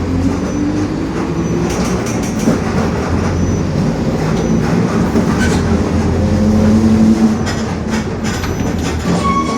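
Mercedes-Benz OF-1721 city bus under way, its diesel engine running with a droning whine from the rear differential, rising in pitch in the first second and loudest about two thirds of the way through, over rattles of the body. The growl is the sign of a worn differential.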